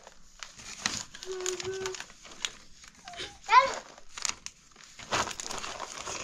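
Crinkling and rustling handling noises, with a couple of short voice calls, one held briefly and one rising and falling.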